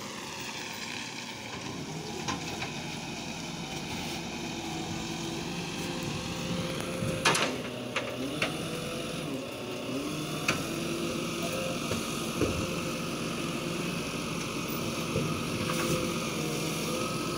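Side-loader garbage truck's diesel engine running as the truck moves slowly along the street. The engine pitch falls over the first few seconds, and a few sharp clanks sound around the middle, the loudest about seven seconds in.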